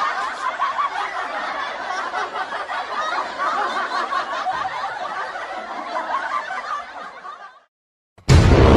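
Laughter sound effect: a long stretch of continuous laughing that cuts off abruptly near the end, followed by the start of a loud music clip.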